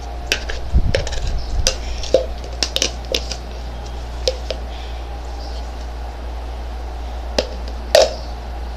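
Scattered clicks and taps of objects being handled, bunched in the first few seconds with a louder knock near the end, over a steady low hum.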